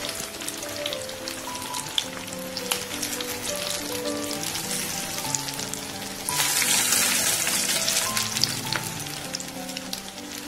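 Fish pieces deep-frying in hot oil, a steady crackling sizzle with fine pops. About six seconds in it swells into a louder hiss for two or three seconds.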